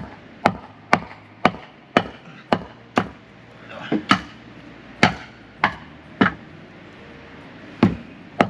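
Sharp knocks in a series, mostly about two a second with a few short pauses. They are blows struck to free a caravan wheel's levelling wedge (Stützkeil) that is stuck fast.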